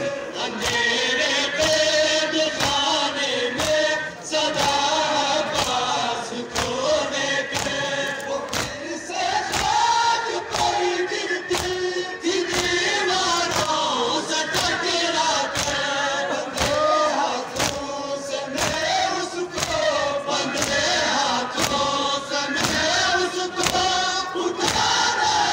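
A crowd of men chanting a Balti mourning lament (nauha) in unison, with a steady beat of chest-beating (matam) slaps about twice a second.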